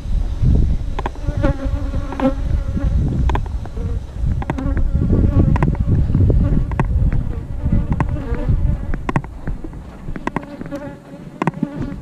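Honey bees buzzing around an open hive, a close bee's hum coming and going several times. Under it, wind rumble on the microphone and scattered light knocks of wooden hive frames being handled.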